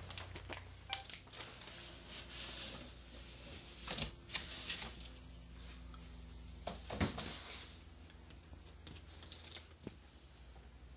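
Packaging being handled: a plastic parts bag crinkling and cardboard box flaps rustling, in several short bouts with a couple of light knocks.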